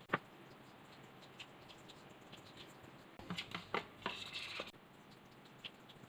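Light kitchen handling sounds while making a no-bake dessert: a sharp tap, then a quick cluster of clicks and taps about three seconds in, followed by a brief scraping rustle.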